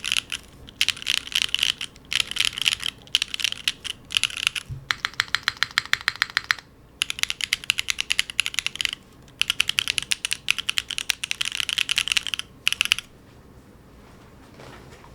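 Typing on a Neo70 mechanical keyboard fitted with factory-lubed Gateron Everfree Dark One linear switches: bursts of rapid keystrokes separated by short pauses. The typing stops near the end.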